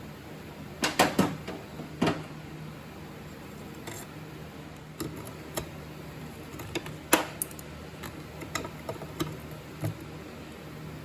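Hand tools clicking and clinking on metal while the small bolts holding an engine's MAP sensor are worked loose. The irregular sharp clicks come in a cluster about a second in, again near two seconds and loudest near seven seconds, with lighter ticks in between over a faint steady hum.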